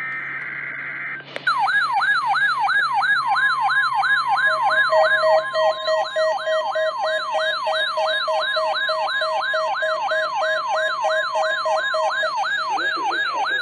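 Emergency Alert System SAME data burst for about the first second, then a weather alert radio's warbling siren alarm, its pitch sweeping up and down about two and a half times a second. Under it, from about 4 s in, runs the steady 1050 Hz NOAA Weather Radio warning alarm tone, sent as part of the weekly test.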